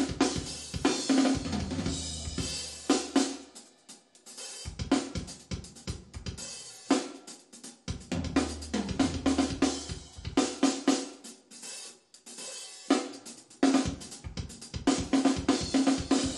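Recorded drum kit played back through B&W 805 D4 Signature bookshelf speakers in a listening room: fast runs of snare, tom, kick and cymbal strokes, broken by a few short pauses.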